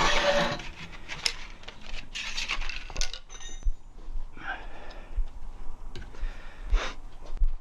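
Rim protectors and tire tools being handled and fitted against a motorcycle wheel rim: scattered light clinks, clicks and short scrapes.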